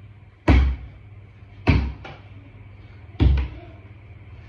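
Small ball for a mini basketball hoop striking hard three times, about a second in, near the middle and about three seconds in, each a deep thud with a short ring.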